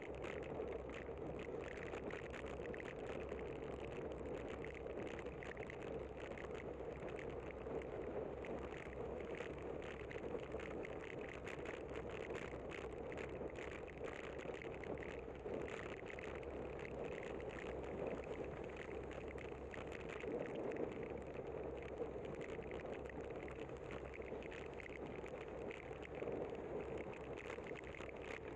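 Steady riding noise from a camera on a moving bicycle: wind and tyre noise on wet pavement, with many small ticks throughout.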